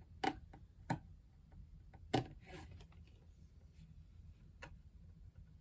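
About four light knocks and clicks of food and drink containers being handled in a mini fridge, the loudest about two seconds in, over a faint room hum.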